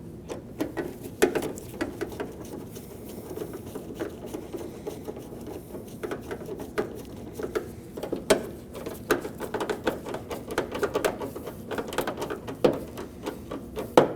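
A hand tool tightening a T30 Torx screw into a plastic door handle inside a car door: a long run of irregular clicks and light knocks, with one louder knock near the end.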